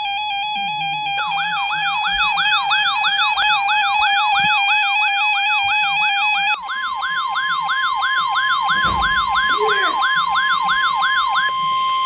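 NOAA weather radio sounding a warning alert, loud. A steady electronic tone turns about a second in into a warbling siren of rapid repeating sweeps, about three or four a second. Midway, the steady 1050 Hz NWS warning alarm tone joins underneath, and both stop near the end. Together they announce a severe thunderstorm warning.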